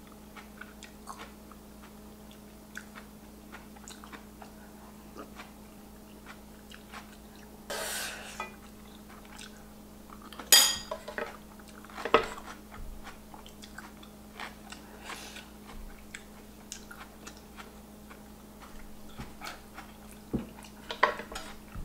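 A metal spoon clinks and scrapes against an electric skillet and bowls, with quiet chewing in between. There are several sharp clinks, the loudest about ten and twelve seconds in, over a faint steady hum.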